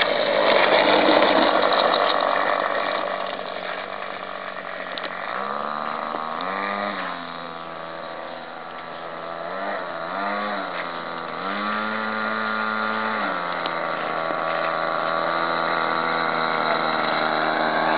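Small nitro glow engine of a radio-controlled trainer plane, loud as the plane rolls close past after landing. It then settles to a steady idle, with several short rises in revs as the throttle is blipped, about a third and again about two thirds of the way in.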